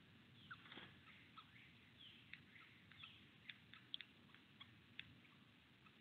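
Faint chirps and short calls of several small wild songbirds: a scattered run of brief high notes, with a few calls sliding downward in pitch.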